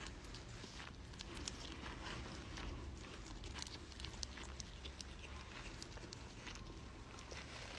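Faint, scattered light taps and clicks over a low steady background rumble.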